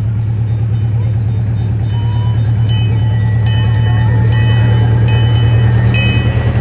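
Park-railway locomotive No. 285 running past with a steady low drone that grows a little louder as it draws near. From about two seconds in, a bell rings in strokes roughly once a second.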